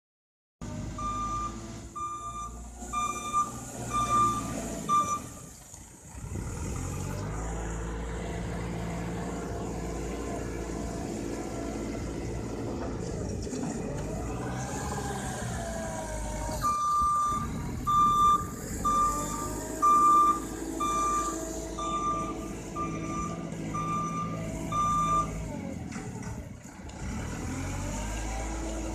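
JCB 4CX backhoe loader's diesel engine running under load, with its reversing alarm beeping about three times every two seconds in two spells while the machine backs up. Louder knocks and gravel scraping come from the front bucket working the pile.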